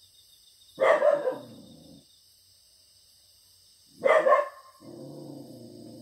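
Young Jindo-mix dog barking twice, loudly, about a second in and again about four seconds in, alarm barks at wild boars coming down the hill. A lower, drawn-out sound follows near the end, and crickets and other insects chirp steadily throughout.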